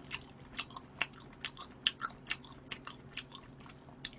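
A person chewing a bite of smoked duck breast close to the microphone, with a steady run of wet, sticky mouth clicks several times a second; the meat is firm and chewy.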